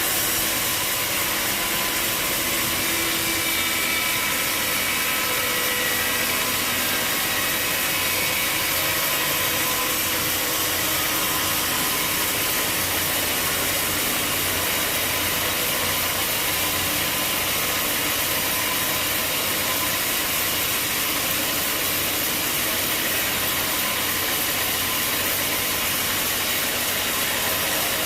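Engine-driven sawmill machinery running steadily, a constant dense noise with faint whining tones and no break or change in level.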